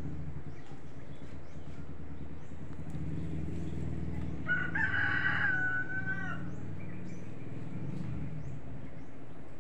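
A rooster crowing once about halfway through: a single drawn-out call of about two seconds that holds its pitch and drops at the end. A low steady rumble runs underneath.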